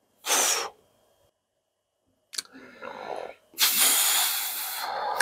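A man breathing close to the microphone: a short exhale just after the start, a click about two and a half seconds in, then a longer, louder sigh-like exhale near the end.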